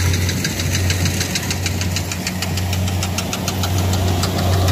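Kubota DC70 rice combine harvester's diesel engine running steadily close by, a rapid rhythmic clatter from the machine over its steady drone.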